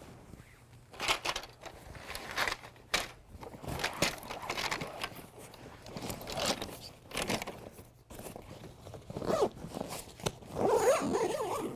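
Folding-canoe frame parts and cloth packing sleeves rustling and scraping as they are packed into a fabric storage bag, in irregular bursts, loudest near the end.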